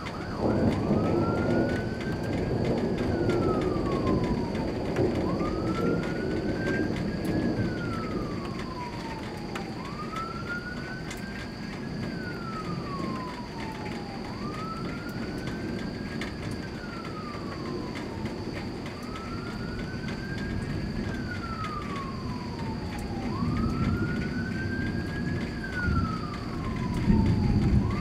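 Emergency vehicle siren in wail mode, its pitch climbing and then sliding down again about every four and a half seconds. A low rumble of thunder rises under it near the start and again near the end.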